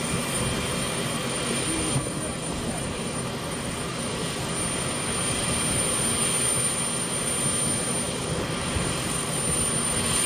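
Steady, distant jet engine noise of a three-engined Tupolev Tu-154 airliner flying overhead, heard from the ground.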